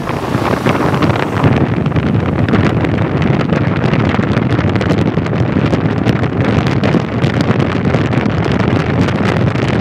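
Loud, steady wind rushing and buffeting the microphone, with constant crackling.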